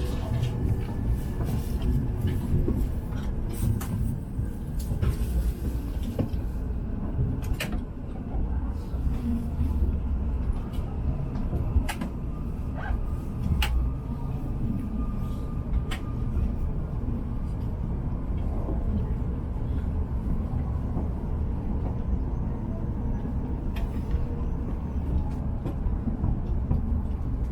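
Inside the cabin of a moving Hokuriku Shinkansen train: a steady low running rumble, with a few faint clicks scattered through it.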